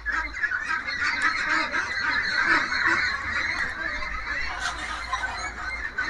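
A large flock of Peking ducks quacking, many calls overlapping into a dense, unbroken chatter.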